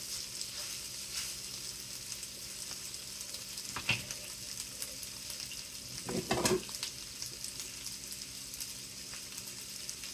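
Fried rice sizzling steadily in an electric skillet, a thin hiss that runs on unbroken. A sharp click sounds about four seconds in, and a brief clatter about six seconds in.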